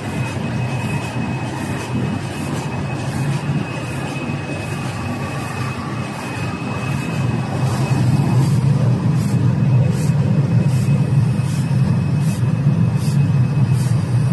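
Automatic roll-to-roll UV screen printing machine running: a steady mechanical rumble with a thin high whine over it and short high-pitched ticks repeating at a regular pace. The rumble gets louder about eight seconds in.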